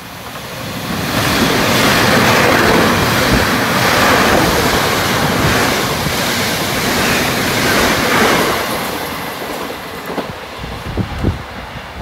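Electric passenger train passing through the station at speed: a loud rush of wheels on rail that builds over the first couple of seconds, holds for several seconds, then fades as the train draws away, with a few sharp clacks near the end.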